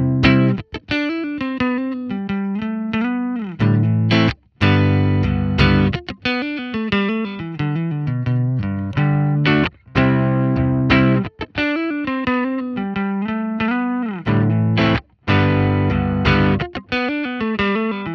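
Electric guitar played through a Klon-style overdrive pedal, a mildly distorted riff of chords and single notes that stops briefly and repeats about every five and a half seconds.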